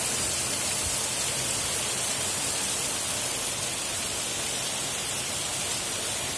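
Heavy monsoon rain falling steadily: an even, dense hiss with no separate drops standing out.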